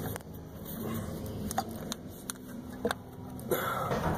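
A few small, sharp clicks and knocks of a thermostat being handled and pressed into its housing on the engine, over a low steady hum, with a brief louder rustle near the end.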